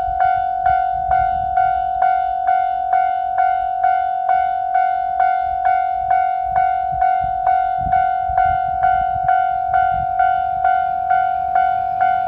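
Japanese railroad crossing warning bell ringing its repeated "kan-kan" at about two strikes a second. Each strike is the same single pitch and rings on into the next. It is the signal that a train is approaching the crossing, and a low rumble runs underneath.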